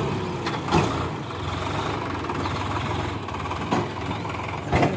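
Sonalika tractor's diesel engine running steadily, tipping trailer raised, with a few sharp knocks heard through it.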